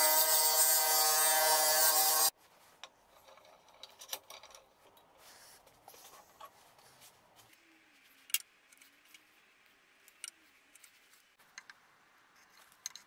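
Small benchtop table saw running steadily as a pine board is fed through it. The saw cuts off abruptly about two seconds in. Faint clicks and light taps of a board and hand tools being handled follow.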